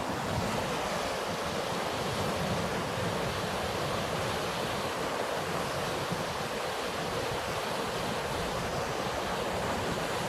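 A river in flood flowing fast and high after heavy rain: a steady rush of water, with some wind on the microphone.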